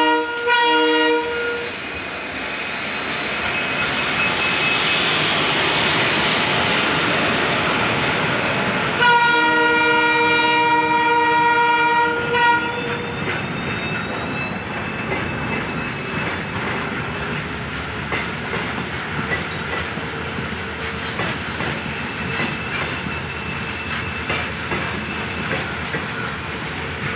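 Indian Railways train horns: two short blasts at the start and one long blast of about three seconds roughly nine seconds in. Around them is the rolling rumble and clatter of a freight train of flat wagons passing on the next track. A thin high whine rises slowly through the second half.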